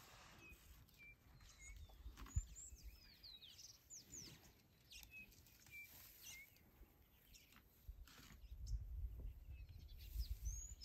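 Scattered short bird chirps and whistles over faint background noise, with a low muffled rumble over the last few seconds.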